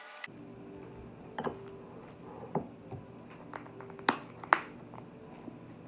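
A fork tapping and scraping against a bowl of macaroni, a few light clicks, then two sharper clicks near the end as the plastic lid of a Parmesan cheese shaker is snapped open.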